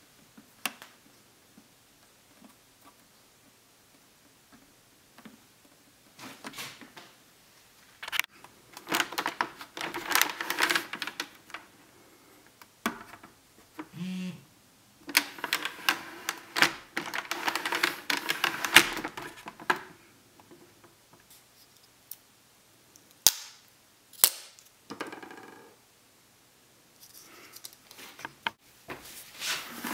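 Hard plastic clicks and rubbing from handling a GoPro mount on a motorcycle helmet shell: scattered sharp single clicks, and two longer stretches of busy clicking and scraping as the camera buckle and adhesive mount are worked into place.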